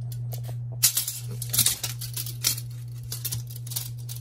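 Handling noise from a plastic talking Maui figure being moved about: a scatter of short clicks and rustles over a steady low hum.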